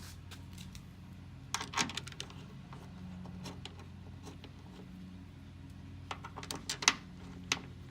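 Short metallic clicks and rattles of bolts and a hand tool as the door lock actuator's bolts are put in, in two bunches about two seconds in and again around six to seven and a half seconds in, over a steady low hum.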